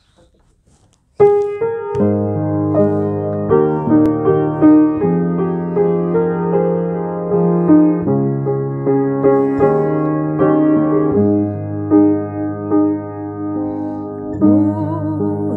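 Piano playing a slow introduction of sustained chords that starts about a second in after a short quiet. A woman's singing voice comes in near the end.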